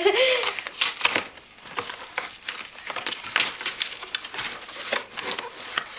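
Toy box packaging of cardboard, plastic and tape being handled and pulled open: irregular crinkling and crackling with sharp rustles.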